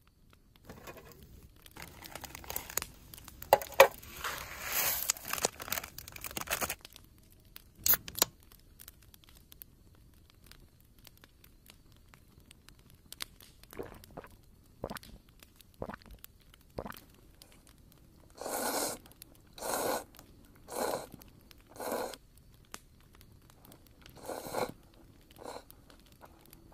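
Plastic wrapper of an instant-noodle packet crinkling and tearing open for several seconds. Then come scattered clicks and a run of four short crunching rustles about a second apart.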